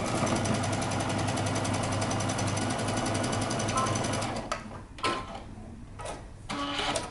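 Computerized sewing machine stitching a seam in knit fabric at a steady fast speed, a rapid even stitch rhythm. It stops about four and a half seconds in, and a few brief short sounds follow.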